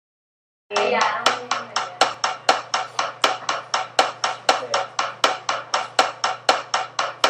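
Steady rhythmic tapping, about four sharp taps a second, beaten out on a wooden stick as hand percussion, starting just under a second in. A steady low hum runs under it.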